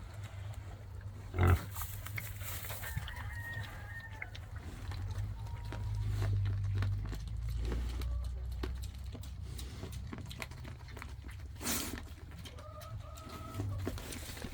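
Farmyard chickens clucking softly in short calls over a low rumble, with a sharp knock about a second and a half in and a brief rushing noise near the end.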